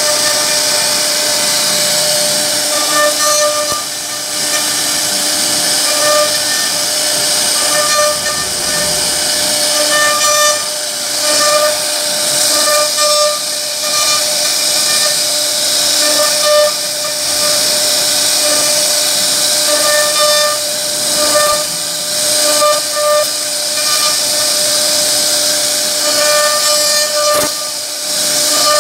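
CNC router spindle running with a steady high-pitched whine and hiss as its bit cuts a relief carving into a solid wood panel. A lower tone swells and fades every second or so as the bit moves through the cut.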